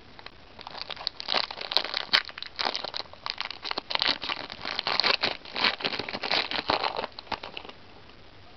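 Foil Yu-Gi-Oh booster pack wrapper being torn open and crinkled by hand: a dense, irregular crackling from about half a second in, stopping shortly before the end.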